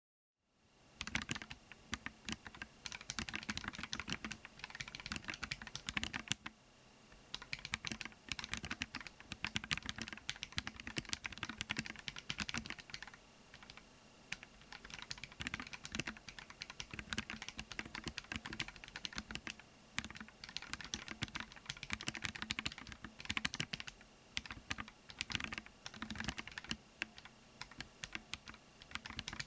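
Typing on a Kinoya Mokulate keyboard: a fast, continuous run of keystroke clicks that starts about a second in, with a few short pauses.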